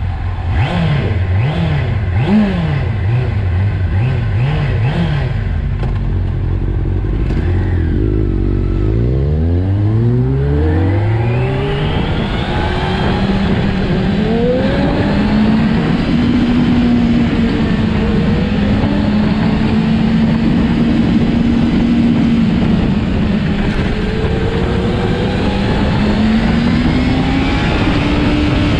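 600 cc inline-four sportbike engine heard from the saddle: short throttle blips at low speed, then about eight seconds in the revs climb steeply under hard acceleration before settling into a steady cruise, with wind noise throughout.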